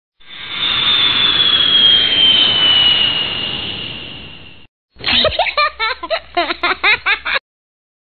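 Animated-outro sound effects. A long whoosh with a high tone gliding slowly downward fades out after about four and a half seconds. Then comes a quick run of short chirping notes for about two seconds, which stops abruptly.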